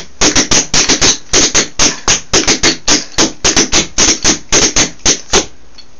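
Metal taps on tap shoes striking a wooden floor in a fast, even run of clicks, about five or six a second, as a dancer performs tap pendulums: a brush forward and a brush back on one leg while the other leg does pickups. The tapping stops about five and a half seconds in.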